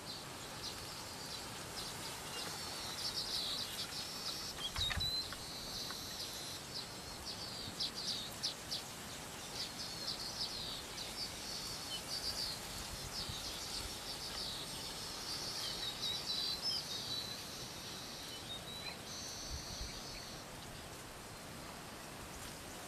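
Wild birds chirping and trilling in quick high-pitched runs, with a few short whistles, over a steady faint background hiss; a couple of low bumps stand out.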